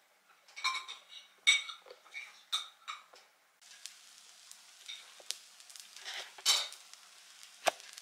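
A few sharp metallic clinks and scrapes against a wood-fired cookstove's iron top, then a pancake sizzling on the hot stovetop as a steady hiss, with scattered ticks and one sharp click near the end.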